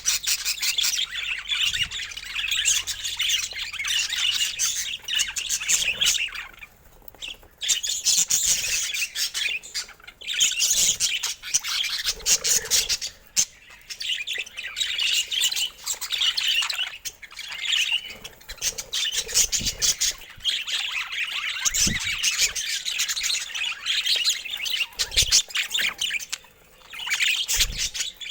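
Budgerigars chattering: a rapid, continuous warble of high chirps and squawks, broken by a couple of short lulls, with a few dull low thumps in the second half.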